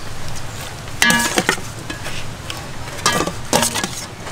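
A metal spoon scrapes and clinks against a stainless steel bowl and a glass blender jug as chopped shallots, chilies and lemongrass are spooned from one into the other. A couple of short pitched background calls come about a second in and again around three seconds.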